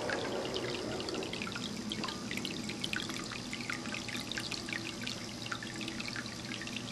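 Ceramic cat drinking fountain running: water streams from its central spout into the glazed bowl, a steady trickle with many small splashes.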